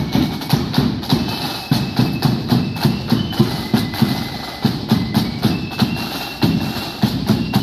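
Marching band playing: a steady drum beat, with a high held melody line above it.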